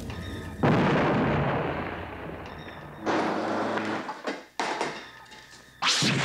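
Sci-fi laser-pistol blasts as film sound effects. A sudden loud blast about half a second in fades over about two seconds. A second blast comes around three seconds in, followed by a few sharp cracks, and another loud blast comes near the end.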